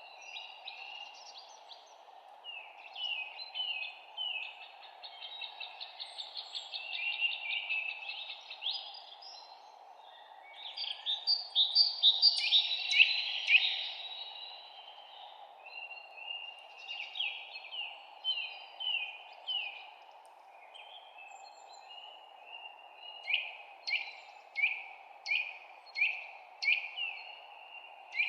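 Birds chirping in a string of quick phrases, loudest about halfway through, and ending with a run of about seven sharp down-slurred chirps spaced roughly evenly. A steady low background rush runs underneath.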